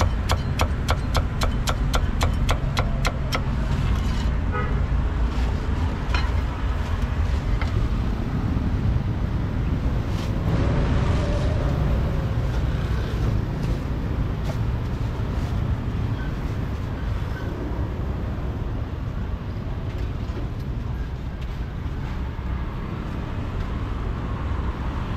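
Cleaver chopping through crispy roast pork belly onto a wooden chopping block in quick, even strokes, about five a second, stopping after about three seconds. Steady road-traffic rumble follows.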